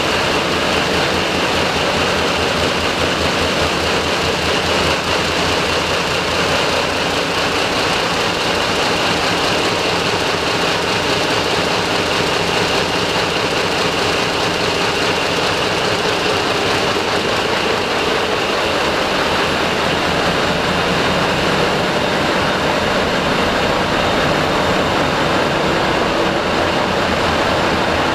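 Ship's main diesel engines running, a loud, steady engine-room din with a fast, even low pulse and a faint high whine.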